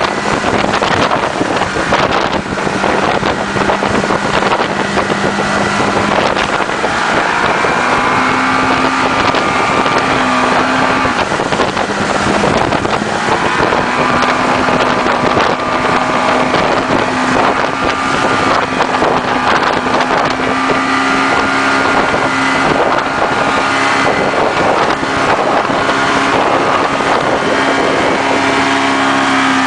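Motorboat engine running steadily at speed while towing a banana boat, with wind buffeting the microphone and water rushing. The engine note rises slightly about eight seconds in and stays up.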